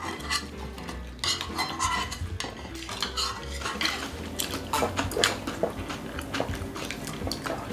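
Chopsticks, spoons and metal bowls clicking and clinking against plates and the table during a meal: many light, irregular taps.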